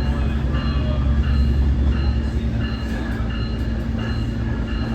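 Interior ride sound of a Nippon Sharyo diesel multiple unit: a steady low rumble of the wheels and running gear with a constant engine hum. Faint short high chimes repeat about twice a second over it.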